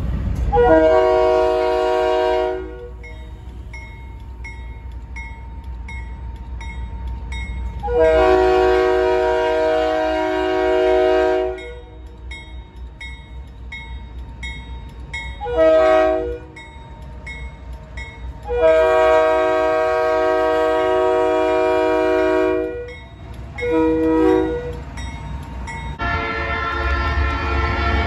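Leslie RS-3K three-chime locomotive horn sounding a grade-crossing sequence: two long blasts, a short one, a long one and a final short one. A crossing bell dings steadily between the blasts. Near the end, a low rumble and a different, higher horn chord start.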